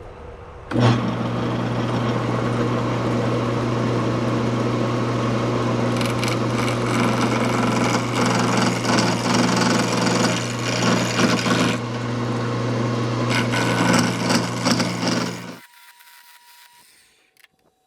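Wood lathe switched on about a second in, its motor running with a steady low hum while a turning tool cuts a square mahogany blank to round, giving an uneven rough scraping that swells and fades; the lathe stops near the end.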